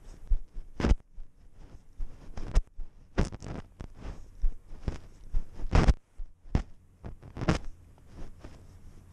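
Irregular scratchy crunches and rustles, close up, from a cat walking with a GoPro strapped under its chin over snow and dead leaves, with its fur and whiskers brushing the camera.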